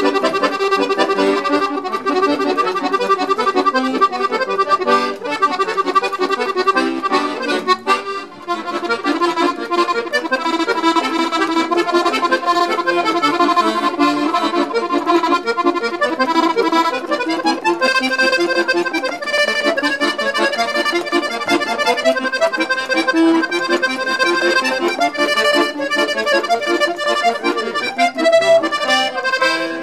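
Hohner Anacleto Latino piano accordion played solo: a melody on the treble keyboard over the left-hand bass, with a momentary break a little after eight seconds in.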